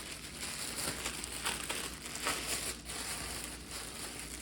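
Packaging being handled and unpacked: irregular crinkling and rustling of plastic wrap and foam packing, with brief sharper crackles.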